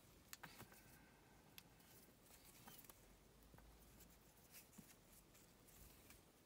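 Near silence, with faint scattered ticks and rustles of satin knotting cord being looped and handled between the fingers.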